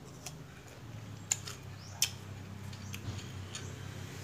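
Mouth clicks and smacks from chewing sour green tamarind: a string of short sharp clicks, two of them louder about a second and a half and two seconds in, over a low steady hum.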